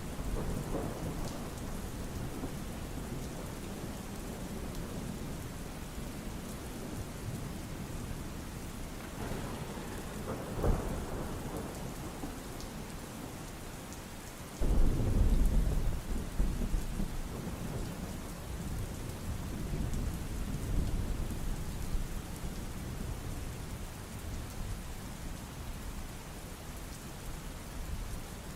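Steady rain with thunder. A faint rumble comes about ten seconds in, then a sudden loud thunderclap about fifteen seconds in that rumbles on for a couple of seconds.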